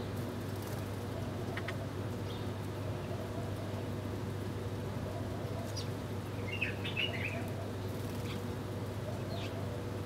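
House sparrows chirping now and then: short, thin single chirps, with a quick cluster of several about seven seconds in. A steady low hum runs underneath.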